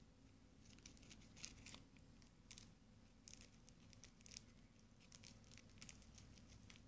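Faint, irregular crinkling and crackling of a plastic candy wrapper being picked at and torn open by fingers.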